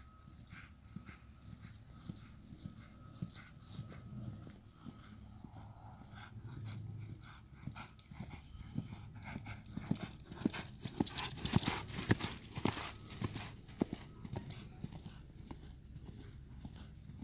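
A horse's hooves beating a steady rhythm on soft dirt arena footing as it is ridden around the ring, the hoofbeats growing loudest about two-thirds of the way through as the horse passes close.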